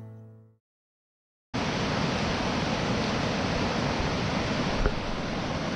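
The last note of a guitar song fades out, then after a moment of silence, about a second and a half in, the steady rushing noise of large whitewater rapids cuts in and holds evenly.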